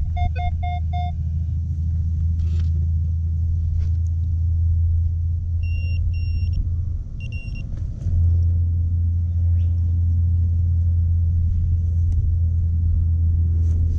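A steady low rumble runs throughout, dipping briefly around seven seconds in. Over it a metal detector gives a quick run of about six beeps in the first second, then two short, higher beeps about a second and a half apart near the middle.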